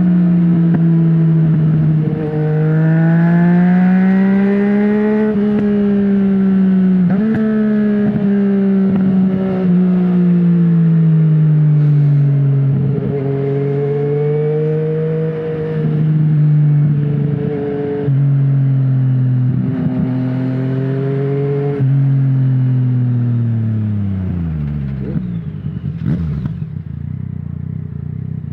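Yamaha MT-09 Gen 2's three-cylinder engine through an open Akrapovic full-system exhaust with no dB killer, under way: the engine note rises and falls with the throttle, with several sudden jumps in pitch. Near the end it drops steadily as the bike slows, coming down close to idle with a few sharp cracks from the exhaust.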